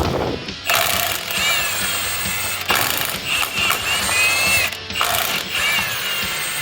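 A power tool runs in three long bursts with a high squeal, over background music.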